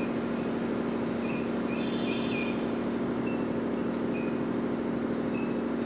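Chalk writing on a blackboard, giving short high squeaks several times over a steady low hum.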